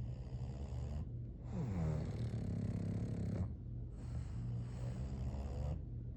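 English bulldog snoring, three slow breaths in a row. The middle one is the loudest, with a pitch that slides downward.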